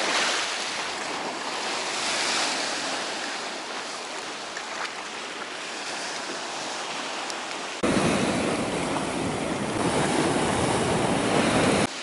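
Storm surf breaking and washing against concrete pier blocks, a steady rush of water. About eight seconds in it turns suddenly louder and deeper, with wind on the microphone.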